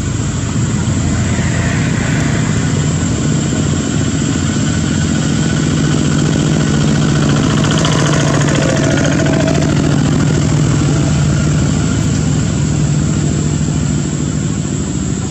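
An engine running steadily, a little louder in the middle.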